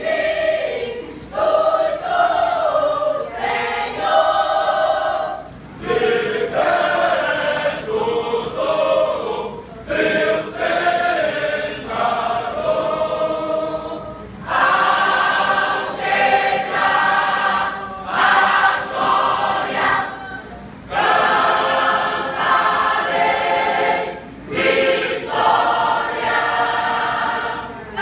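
Church choir, mostly women's voices with a few men, singing together in long phrases broken by short pauses.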